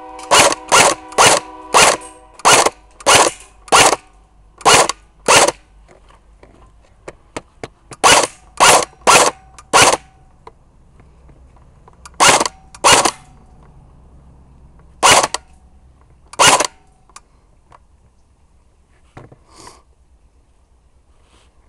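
Airsoft guns firing single shots, about seventeen loud, sharp pops in irregular bursts: a quick run of nine, then groups of four, two and two, with pauses between.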